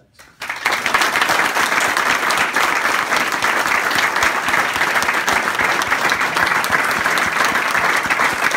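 Audience applauding: many people clapping together, breaking out about half a second in and holding steady.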